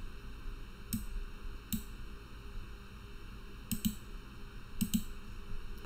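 Computer mouse clicking a few times: single clicks about one and nearly two seconds in, then two quick pairs of clicks later on.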